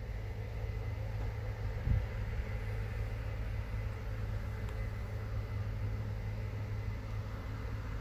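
Combine harvester running while harvesting barley: a steady low drone with a faint steady high tone over it. A brief low thump comes about two seconds in.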